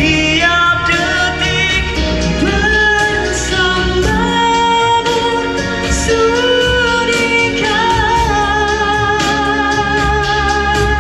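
A man singing a Malay pop song into a handheld microphone over a backing track, holding long notes with vibrato.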